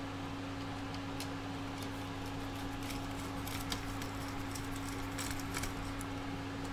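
Scattered faint clicks and taps of small screws and 3D-printed plastic parts being handled and fitted, over a steady low hum.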